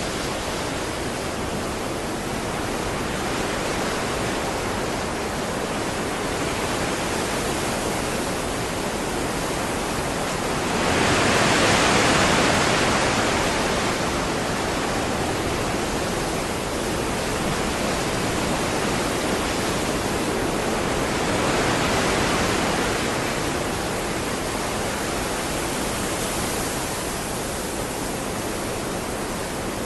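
Waterfall: a steady rush of falling water, swelling louder briefly twice, about a third of the way in and again past two-thirds.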